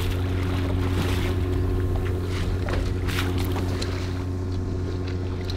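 Boat engine running steadily with a low, even drone, with scattered short splashes and knocks of water and gear on top.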